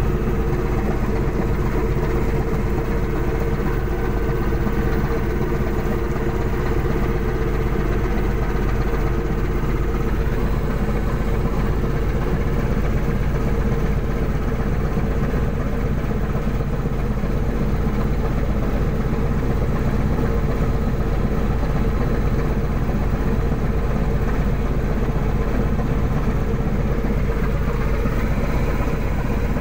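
Steady, unchanging drone of a fishing boat's engine and deck machinery, with the longline hauler running as the line is fed into its bin.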